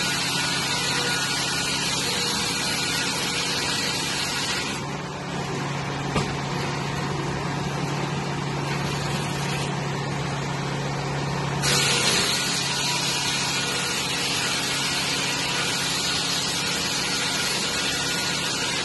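Circular sawmill running steadily while boards are sawn for featheredge siding, with a low hum throughout. A high hiss drops away for about seven seconds in the middle and comes back about twelve seconds in with a brief louder surge.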